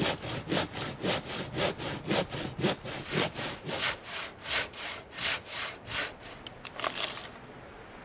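Large hand saw cutting through a fallen, weathered log, in fast, even back-and-forth strokes. The strokes stop shortly before the end as the round is cut free.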